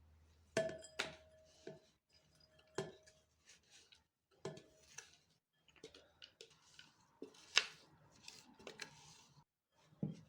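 Kitchen dishes and utensils clinking and knocking against each other in a series of separate strikes, the first few ringing briefly like struck glass or metal; the sharpest knock comes near the end.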